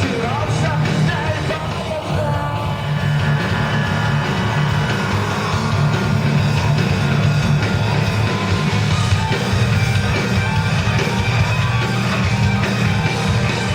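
Live rock band playing loud, dense rock music with a heavy bass end, with sung and shouted vocals.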